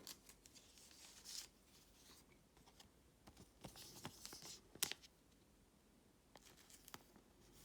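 Faint handling of trading cards: soft rustles and scattered light clicks and taps, the sharpest tap about five seconds in.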